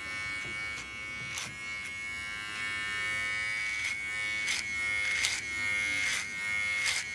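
Electric hair clippers running with a steady high-pitched buzz, with short crackles every second or so as the blades pass through hair.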